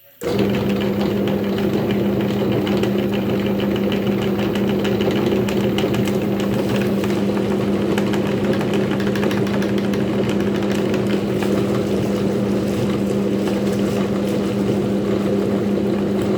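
Electric meat grinder switched on a moment in, then running steadily with a loud, even motor hum.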